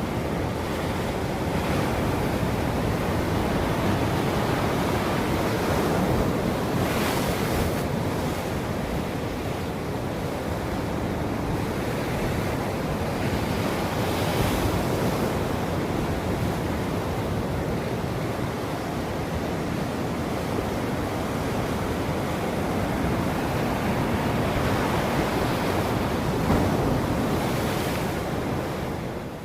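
Ocean surf: a continuous wash of waves, with stronger breakers surging in about seven, fourteen and twenty-eight seconds in.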